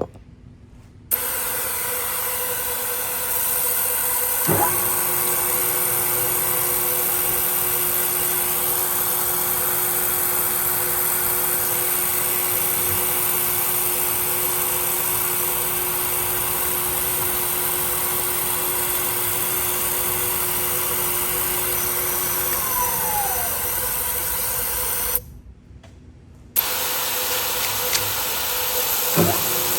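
Manual milling machine running, drilling tap-size holes for 8-32 bolts, with mist coolant spraying in a steady high hiss. It starts about a second in, stops briefly about 25 seconds in, then starts again.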